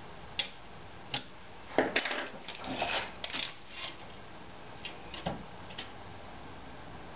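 Clicks, knocks and rattles of hand tools and metal parts being handled on a wooden workbench, busiest about two to three seconds in, as a steel tape measure is picked up and its blade pulled out across an aluminium extrusion frame.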